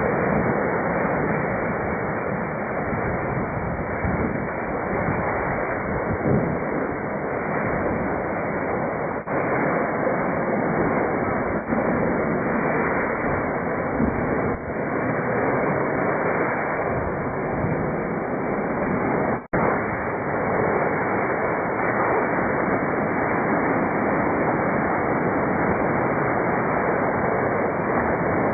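Rough sea: waves surging and breaking against a sea wall, a steady wash of surf noise with wind on the microphone. The sound breaks off for an instant a few times.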